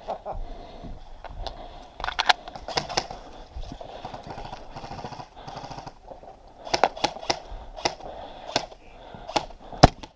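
Airsoft guns firing single shots: about a dozen sharp cracks at uneven intervals, a few about two seconds in, a cluster around seven seconds, and the loudest one near the end.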